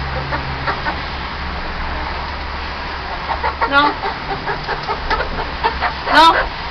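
Hens clucking: scattered short calls that grow more frequent from about three seconds in, with a louder call near the end.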